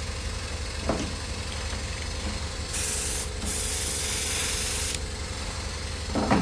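Spray mist gun of a hydrofacial beauty machine, just started, spraying with a hiss for about two seconds, beginning about three seconds in, over the machine's steady low hum.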